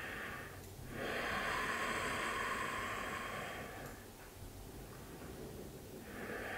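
A woman's slow, audible breaths close to a clip-on microphone: a long breath about a second in that lasts nearly three seconds, and another starting near the end.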